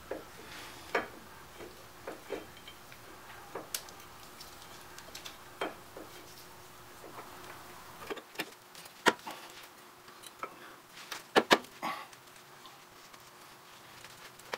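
Brake pads, their metal clips and the caliper clicking and clinking against the caliper bracket as they are worked into place by hand. Scattered light clicks, with a few sharper knocks close together about eleven seconds in.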